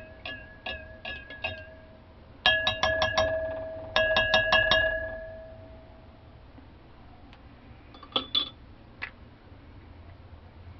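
A utensil clinking against a glass beaker holding the gold solution, setting the glass ringing: quick runs of four or five clinks, loudest between about two and five seconds in, the ring dying away soon after. A few dull clicks follow near the end.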